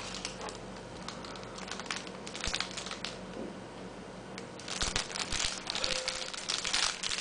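Crinkling and rustling of plastic packaging as the box's contents are handled and unwrapped, with irregular crackles that grow busier and louder in the second half.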